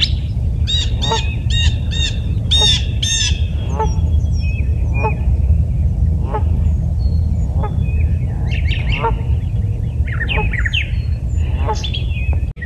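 Canada geese honking, several calls close together in the first few seconds, then scattered single calls, with smaller birds chirping now and then. A steady low rumble runs underneath.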